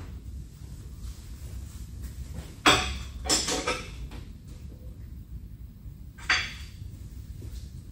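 Sharp metal-on-metal clinks of steel tools being handled: one about two and a half seconds in, a short rattling clatter just after it, and another clink about six seconds in, over a low steady hum.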